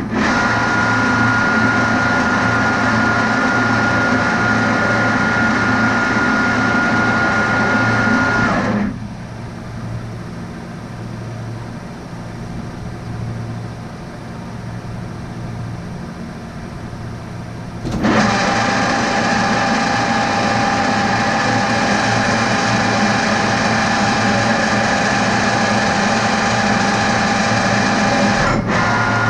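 Metal lathe running steadily while threading a hydraulic cylinder tube, with a steady high whine over the motor noise. About nine seconds in the sound drops to a low hum for roughly nine seconds, then the lathe runs at full again.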